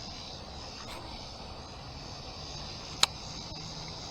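Steady chirring of crickets, with one sharp click about three seconds in.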